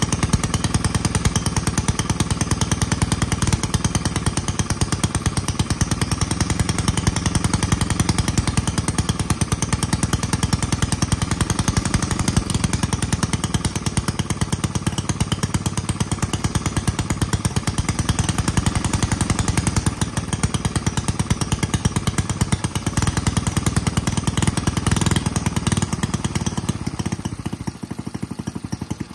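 Rebuilt 1947 Clinton single-cylinder small engine running on its own at a fast, steady pace while its carburetor is adjusted. Near the end it slows and begins to die as it runs out of fuel.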